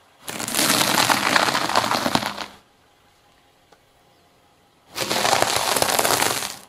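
Car tyre crushing a pile of crunchy puffed snacks on asphalt: two bursts of dense crackling and crunching, each about two seconds long, the first starting just after the beginning and the second about five seconds in.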